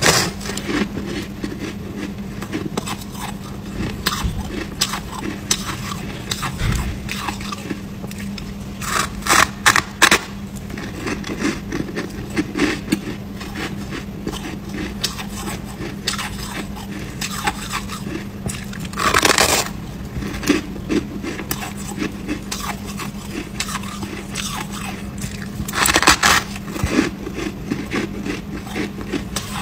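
Biting into and chewing a chunk of crunchy white frost ice: four louder crunching bites (at the start, about nine seconds in, about nineteen seconds in and about twenty-six seconds in), with steady crackling chewing between them. A steady low hum runs underneath.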